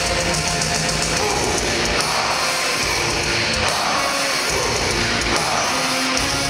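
Heavy metal band playing live with distorted electric guitars and drums, heard loud from inside the crowd.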